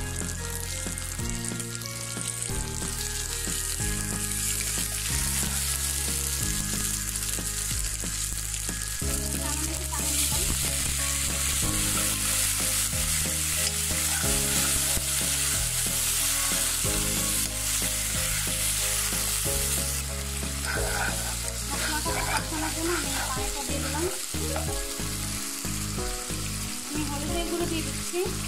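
Chopped onion and garlic paste sizzling as they fry in hot oil, stirred now and then with a spatula. The sizzle grows louder for about ten seconds in the middle.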